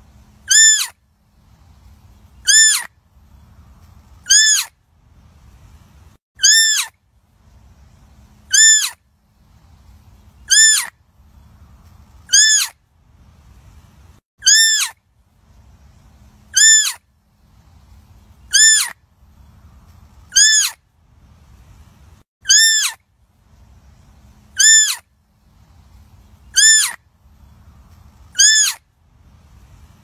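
Deer fawn bleating: a short, high-pitched call that rises and falls, repeated evenly about every two seconds, fifteen times, with a faint low rumble between the calls.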